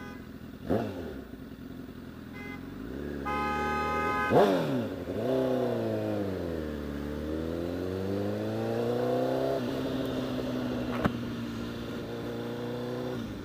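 A vehicle horn sounds once for about a second, a little over three seconds in. Right after, the Honda CBR1000RR's inline-four engine revs sharply. Its pitch then dips and climbs again with the bike's speed and drops back to a steadier note near ten seconds in.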